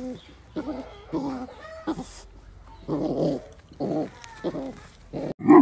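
Kangal puppies play-fighting: a string of about eight short, high whining yelps as one pup mouths the other's head.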